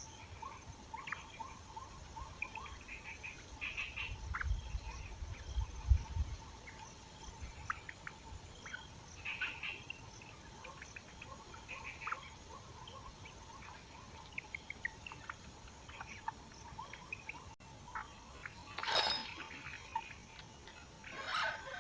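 Swamp ambience: scattered short chirping animal calls over a faint steady hum, with a low rumble and a knock about five to six seconds in.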